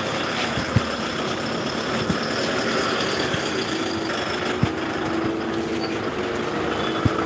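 Steady street noise of vehicles, with a low, steady engine-like tone coming in about halfway through and a few scattered light knocks.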